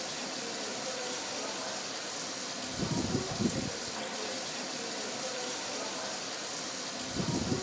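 Kitchen tap water running steadily into a steel sink. Two short clusters of low thuds break in, about three seconds in and again near the end.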